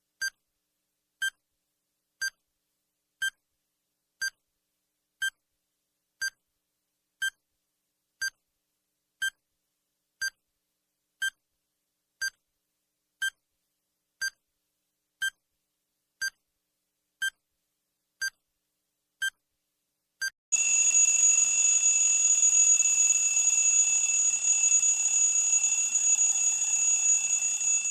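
Countdown timer sound effect: short high beeps, one each second, then about twenty seconds in the count reaches zero and a loud continuous alarm rings for about seven seconds, signalling that time is up.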